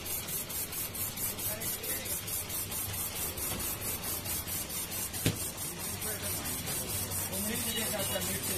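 Ice-shaving machine shaving a block of ice: a rhythmic scraping hiss from the spinning blade, about five strokes a second, over a low machine hum. One sharp knock comes about five seconds in.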